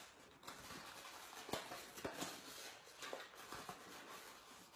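Faint handling of a folded paper box: soft paper rustling with a few light clicks and taps as it is turned and creased.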